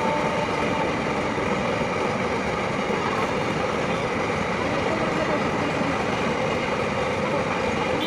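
A train horn holds one note for about the first second, then stops. A steady, loud noise of a train running past the level crossing carries on under it.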